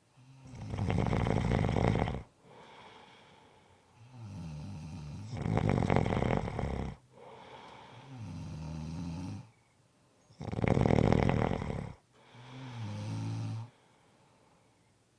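A person snoring in sleep: three loud, rattling snores about five seconds apart, each lasting under two seconds, with softer, droning snores in between.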